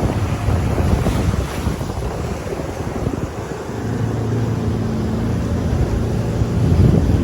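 Wind buffeting the microphone while a jet ski's engine runs steadily underway, with water rushing past the hull. The engine's steady tone stands out more clearly in the second half.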